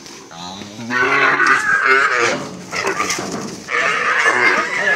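Young zebu-type cattle bawling loudly in two long, wavering calls, one about half a second in and another near the end: the distress calls of calves being roped and thrown.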